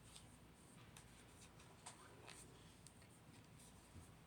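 Near silence: room tone with a few faint clicks of small objects being handled, the clearest just under two seconds in.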